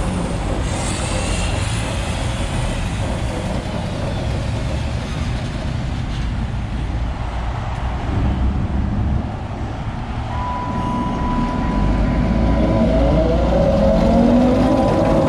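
Small diesel switcher locomotive rolling slowly toward and past, its engine running with a steady low rumble that grows louder near the end. From about ten seconds in, a steady high whine and some wavering tones join the rumble.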